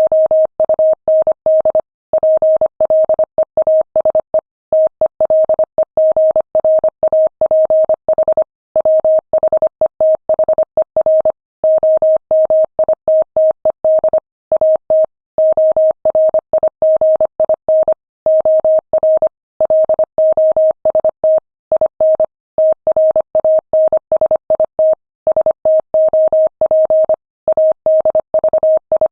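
Morse code at 25 words per minute, sent as a single steady tone keyed on and off in quick dots and dashes, with short pauses between words.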